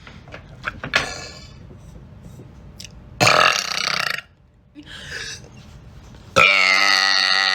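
Two loud human burps: a short rough one about three seconds in, then a long pitched belch about six seconds in that runs on to the end.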